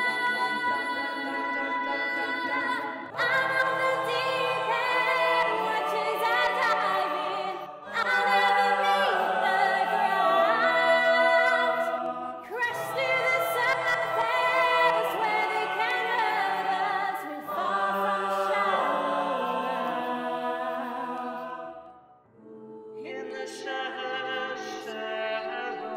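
Mixed-voice show choir singing a cappella in close harmony: held chords with a melody moving over them, in phrases of a few seconds each, with a short break near the end.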